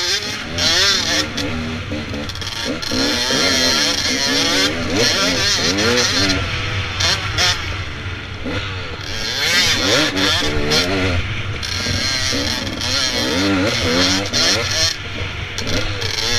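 Dirt bike engine close to the microphone, its revs rising and falling over and over as the throttle is opened and rolled off, with wind rushing over the helmet-mounted microphone.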